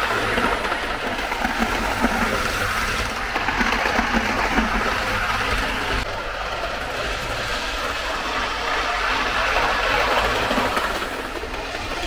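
Hornby Class 156 Sprinter model, a 00 gauge two-car diesel unit, running along the layout track: the steady running noise of its motor and wheels on the rails.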